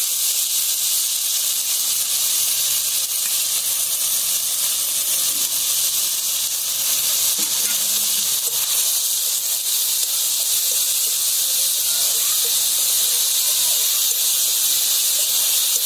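Chopped onions sizzling in hot mustard oil with cumin seeds in an iron kadhai, a loud steady hiss as they start to fry.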